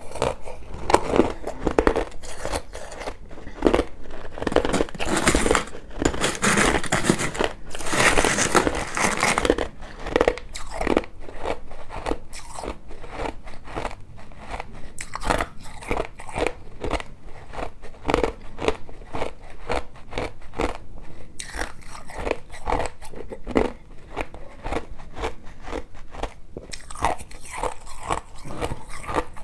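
A person chewing crushed ice: a steady run of quick, sharp crunches, several a second, with a denser burst of crunching about five to nine seconds in.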